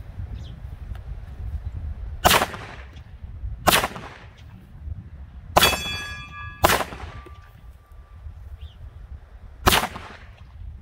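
Five pistol shots from a Polymer80 Glock 19-pattern 9mm handgun, fired one at a time at uneven intervals. A metallic ringing tone hangs on for about a second after the third shot.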